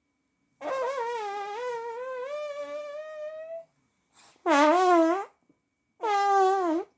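Fart sound effects: one long wavering toot of about three seconds that rises slightly in pitch near its end, then two short toots about a second apart.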